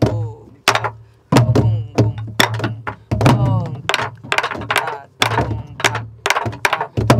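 A group of sori-buk, Korean pansori barrel drums, beaten together in a jangdan rhythm cycle. Deep booms from the drumheads mix with sharp clacks of the sticks, about a dozen strokes in uneven groups.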